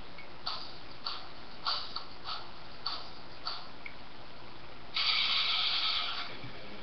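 Plastic packaging being worked open by hand: a string of small crackling clicks roughly every half second, then about a second and a half of loud crinkling rustle.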